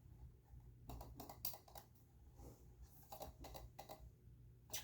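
Faint irregular clicks and taps in a few short clusters, over a low steady hum.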